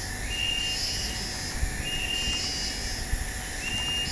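Steady background hiss and low rumble with a short, high chirp that repeats about every one and a half seconds, plus a couple of faint clicks.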